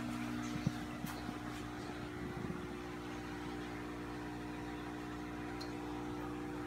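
Steady electrical hum of running aquarium equipment, such as filters and air pumps, with several held low tones over a faint hiss. A few light clicks and knocks come in the first couple of seconds.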